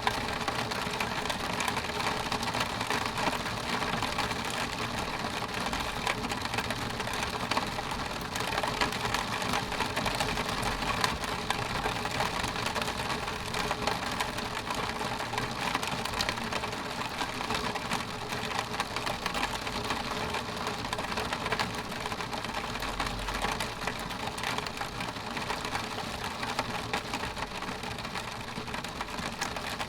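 Rain pattering steadily on a window pane: a dense, even stream of small drop ticks on the glass.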